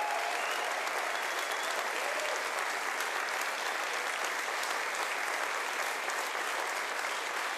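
Large audience in a hall applauding steadily, a dense even clatter of many hands clapping at once.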